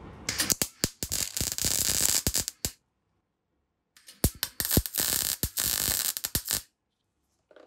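MIG welder arc crackling and sizzling as a bolt is welded onto a steel tube, in two runs of about two and a half seconds each. Each run starts and stops abruptly, with a pause between them.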